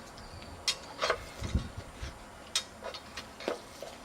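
Irregular sharp clicks and light knocks, about six over four seconds with one duller thump in the middle, from a dog working at a paw-operated dog water fountain.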